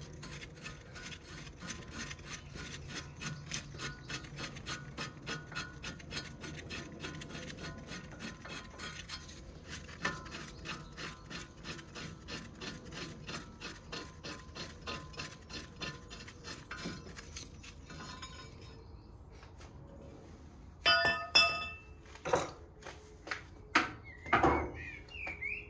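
Ratchet clicking in a quick, even run of ticks as the 21 mm caliper carrier bolt is wound out by hand. Near the end come a few loud metal clanks and knocks as the brake caliper carrier is pulled off the disc.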